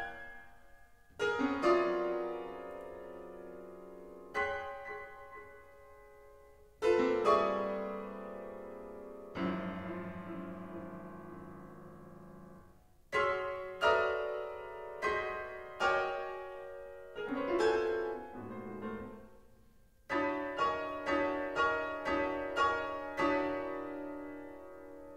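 Solo piano in modern classical music, striking loud chords that are left to ring and die away. The chords come a few seconds apart at first, then in quicker groups, with a run of about seven chords roughly half a second apart near the end.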